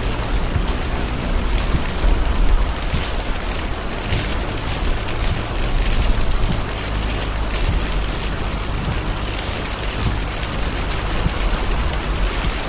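Heavy rain falling on a moving car's roof and windshield, heard from inside the car as a steady hiss with scattered drop ticks over a low rumble of road and engine noise.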